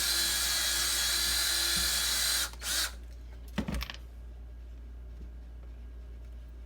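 Power drill running steadily for about two and a half seconds, enlarging a pilot hole in wood so that an eye screw will fit. A short second burst of the drill follows, then a single knock.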